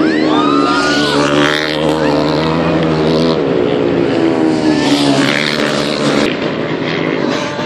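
Several supermoto racing motorcycles running hard as they pass, their engine notes rising and falling with the throttle, one climbing steeply near the start.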